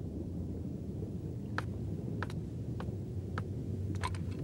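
Low steady background hum with a handful of light, evenly spaced clicks, footsteps on pavement, the last ones coming close together.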